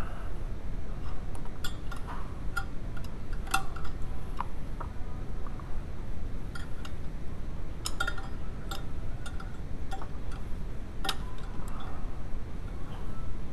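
Hand tools clinking and tapping against metal engine parts in irregular light strikes, over a steady low background rumble. This is work on removing the VW 2.0L water pump.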